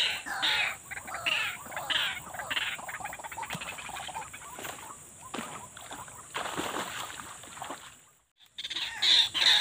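An animal calling over and over in short calls that slide in pitch, about two a second, thinning out midway. The sound cuts out briefly about eight seconds in, then the same calls return.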